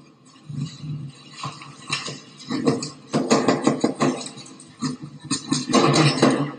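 Sand, dirt and small rocks being pushed by a gloved hand into an armoured vehicle's metal fuel filler neck: a run of gritty scraping and clattering on metal that gets busier about two seconds in, over a low hum.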